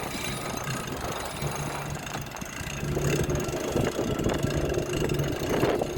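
Boat engine running steadily, a low hum that fades in and out under a noisy rumble.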